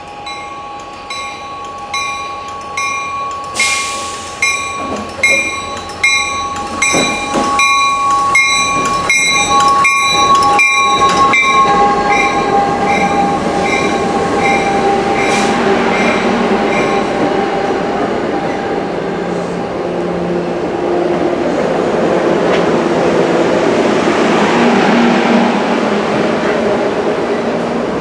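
Commuter train pulling into a station platform. For the first eleven seconds a locomotive bell rings steadily, about two strikes a second, as the train approaches. Then the coaches rumble past with wheel and rail noise.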